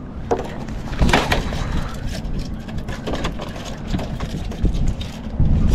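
Knocks and slaps as a hooked stingray is swung up over the rail and lands on the pier's perforated plastic decking, the sharpest about a third of a second in and around one second in. Wind rumbles on the microphone.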